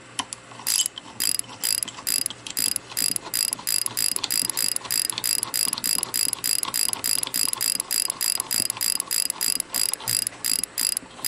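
Steel nut being spun by hand down a long threaded bolt, giving a run of light, evenly paced metallic clicks about three a second with a bright ring.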